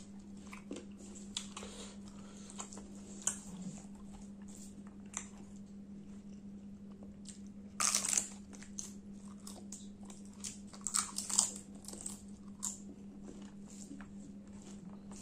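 Close-miked eating by hand: small wet chewing and lip-smacking clicks, with a loud crackly bite into a puffed fried puri about eight seconds in, followed by a run of sharper chewing clicks. A steady low hum runs underneath.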